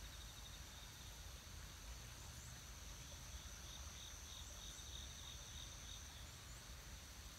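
Faint chorus of insects: a steady high trill, joined about two seconds in by another insect's rapid pulsing chirp, over a faint low rumble.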